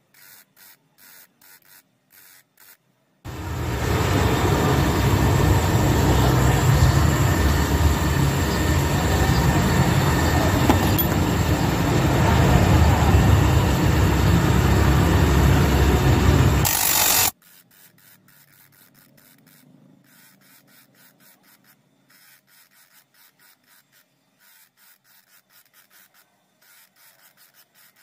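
Grinding machine's spinning stone wheel grinding the steel inner race and ball cage of a drive-axle CV joint. A loud, steady grinding noise with a heavy low rumble starts about three seconds in and stops abruptly about fourteen seconds later. Before and after it there is only faint rapid pulsing.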